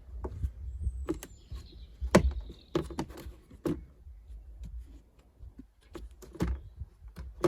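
Plastic car trim being handled and pressed back into place: irregular sharp clicks and knocks, the loudest about two seconds in.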